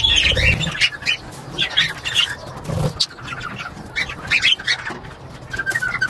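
A flock of budgerigars chattering in irregular bursts of short, high chirps.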